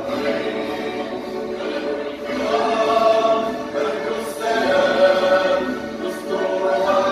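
Recorded national anthem: a choir singing held notes with musical accompaniment, swelling and fading phrase by phrase.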